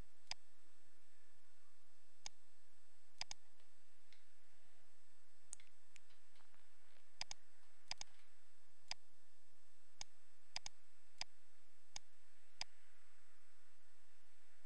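Computer mouse buttons clicking: sharp single clicks and some quick pairs at irregular intervals, about one a second, over a steady faint hiss.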